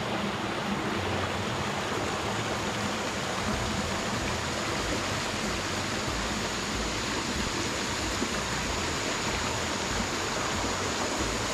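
Shallow mountain stream running over rocks and small cascades, a steady rush of flowing water.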